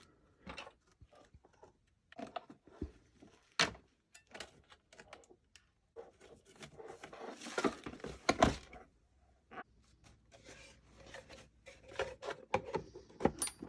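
Scattered clicks and knocks of small reel parts being handled and fitted together, with a longer scraping, rustling stretch about seven seconds in.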